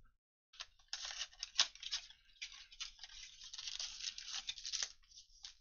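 Cardboard blaster box of football trading cards being torn open by hand: a run of crackly tearing and rustling of the paperboard flap, with one sharp snap about a second and a half in.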